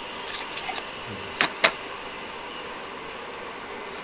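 Two sharp clicks close together about a second and a half in, after a few faint ticks, over a steady hum.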